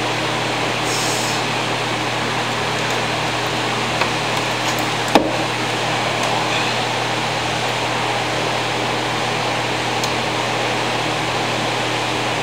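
Steady machine drone with a low hum underneath, with a light tick about four seconds in and a sharper knock about a second later.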